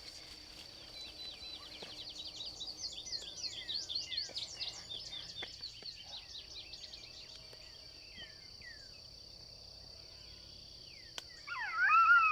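Steady high-pitched drone of crickets and other insects, with a run of quick, high, downward-sliding chirps through the first two-thirds. Near the end a loud wavering howl starts.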